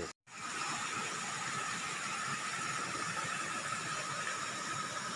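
Steady outdoor riverside ambience: an even hiss with a faint steady high drone, starting just after a brief dropout.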